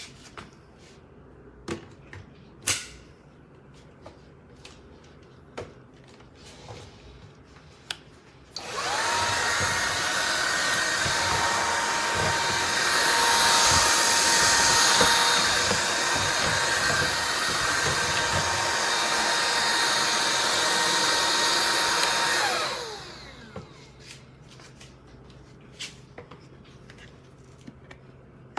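Shark IZ362H cordless stick vacuum switched on about eight seconds in, its motor running with a steady high whine and rush of air, slightly louder for a few seconds in the middle, then switched off and winding down with falling pitch. Scattered clicks and knocks of handling the vacuum come before and after.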